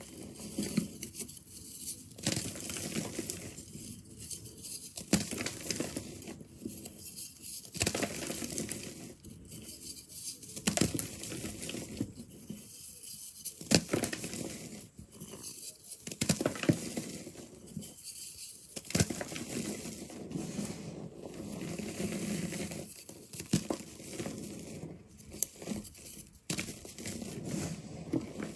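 Dry, crunchy reformed powder blocks snapped and crushed by hand, crumbling into loose powder with irregular crackling crunches.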